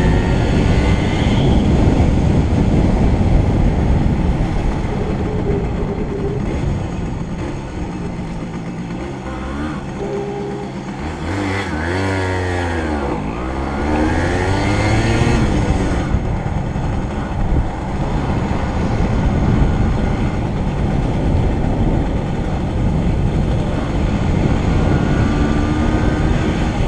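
Wind and road noise of a vehicle ride through town, a dense low rush. Around the middle it quietens while slowing at a traffic light, and an engine's pitch drops and then climbs again as it pulls away.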